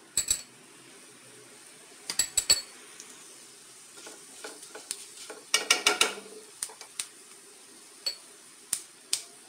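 Cumin and mustard seeds sizzling softly in hot ghee in a non-stick kadhai for a tadka. A spatula stirs them, clicking against the pan in short clusters just after the start, about two seconds in and about six seconds in.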